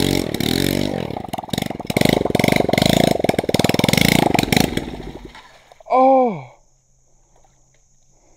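Coolster 110 pit bike's single-cylinder engine sputtering and bogging unevenly in the mud, then dying about five seconds in as it stalls. The riders put the struggle down to the engine having trouble drawing air through its snorkel tube. A short falling vocal exclamation follows the stall.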